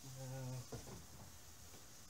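A man's brief wordless hesitation sound, held on one low pitch for about half a second and trailing off in a short glide, then faint room tone.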